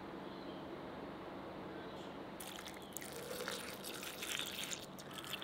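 Milk poured from a plastic jug into a glass blender jar onto solid ingredients, an irregular splashing pour that starts about halfway through; before it only a faint steady background hum.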